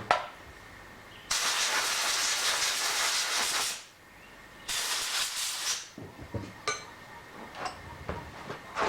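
Compressed-air blow gun blasting twice, a long hiss of about two and a half seconds and then a shorter one, blowing chips out of the tapped hole around a broken tap. A few light metal clicks follow.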